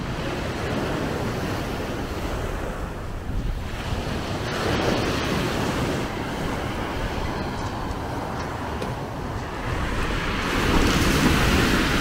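Sea waves breaking and washing up the shore, with wind buffeting the microphone as a low rumble. The surf swells about four seconds in and again near the end.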